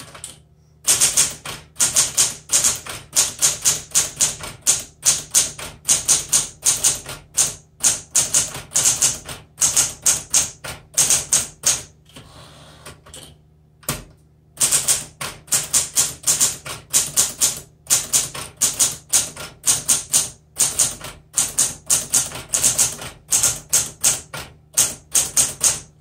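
1968 Smith Corona Super Sterling manual typewriter being typed on: rapid runs of keystrokes, the type bars striking the platen several times a second. About halfway through the typing stops for two seconds or so, broken by a single knock, then resumes.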